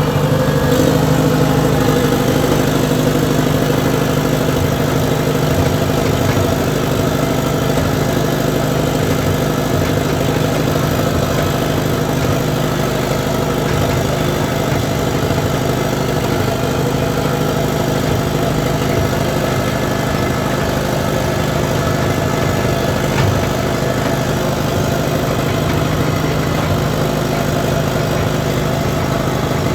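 An engine running steadily at a constant speed, with a slight surge in level near the start and a brief knock about 23 seconds in.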